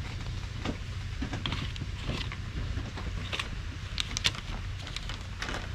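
Metal fork clicking and scraping against a plastic plate in short irregular strokes, over a steady low rumble.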